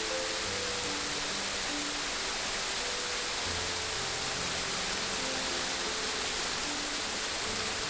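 Steady rushing water, an even hiss, with soft slow music notes at changing pitches underneath.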